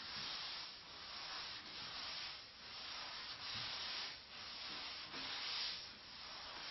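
Hand sanding with a sanding block on hard polyester primer surfacer over a fuselage plug: even back-and-forth rasping strokes, a little more than one a second.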